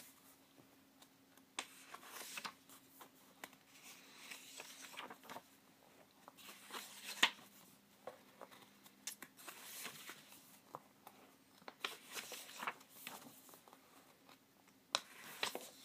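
Glossy pages of a booklet being turned and handled: soft rustles, swishes and light taps of paper, with a faint steady hum underneath.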